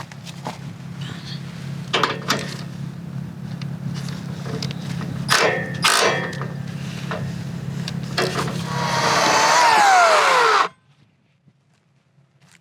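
Portable bandsaw sawmill running with its engine humming steadily, a few knocks of wood and metal in between. Near the end a louder rushing noise with a falling whine builds, then it stops abruptly.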